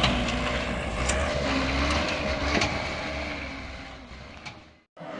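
A stuck dump truck's engine running under load, a steady low drone with a held mid-pitched tone and a few clicks. It fades away near the end and cuts off suddenly.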